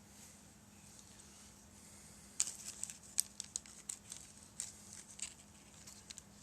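Small plastic bag crinkling in a run of sharp, irregular crackles, starting a couple of seconds in, as a small 3D-printed model part is handled in and out of it.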